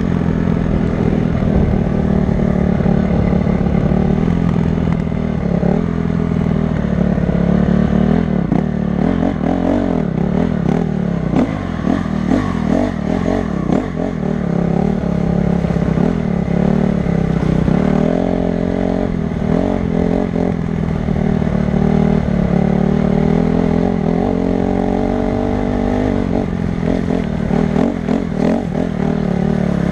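Honda CRF250 dirt bike's single-cylinder four-stroke engine running as it is ridden off-road, its pitch rising and falling with the throttle.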